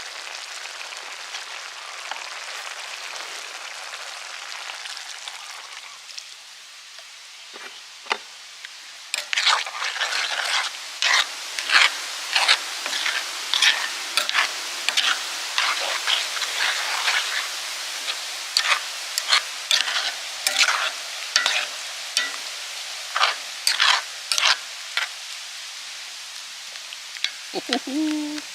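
A pan of chicken-heart stew sizzling, then a utensil scraping and clacking against the pan as the stew is stirred, about two strokes a second from about a third of the way in.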